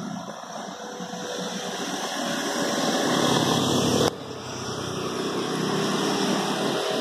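Passing road traffic: a small motor scooter's engine and tyre noise swelling as it passes close by, over the hum of other vehicles. The sound drops off abruptly about four seconds in, then builds again.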